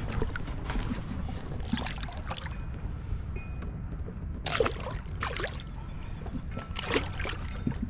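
Low steady rumble of wind and water lapping around a small dinghy, with a few brief sharp sounds about four and a half, five and a half and seven seconds in.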